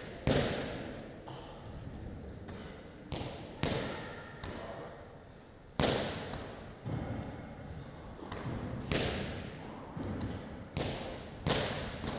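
Wall-ball shots: a medicine ball hitting the wall target five times, one loud hit about every two and a half to three seconds, each trailing off in the room's echo, with softer thuds in between.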